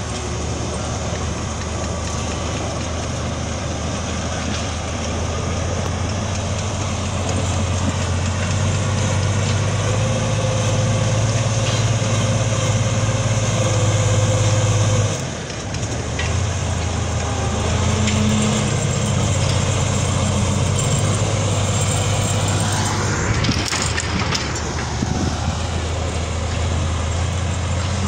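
Caterpillar 14H motor grader's diesel engine running steadily under load as the grader works its blade across the dirt, with a brief dip in the engine sound about halfway through.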